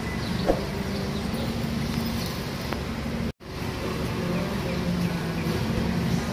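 Street background noise with traffic running steadily and a low hum. There is a sharp click about half a second in, and the sound cuts out for an instant about halfway through.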